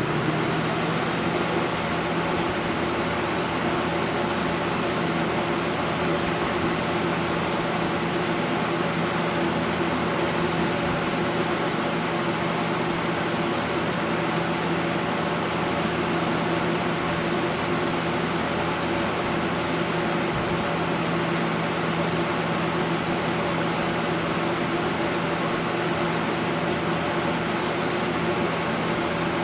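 Lasko 20-inch box fan, model 3733, running steadily: a rush of moving air over a constant motor hum, with a slight whine the owner puts down to a worn-out motor.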